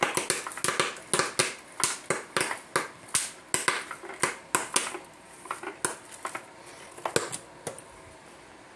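Popcorn popping in a West Bend Stir Crazy electric popper: sharp, irregular pops, coming thick for about five seconds, then thinning out to a few scattered ones as the batch nears its end.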